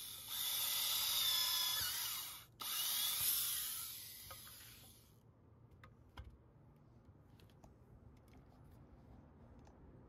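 Vintage Craftsman 315.7721 electric drill running at full speed with a high whine as it bores into a wooden board. The motor cuts out for a moment about two and a half seconds in, starts again, then winds down and stops about five seconds in. A few faint clicks follow.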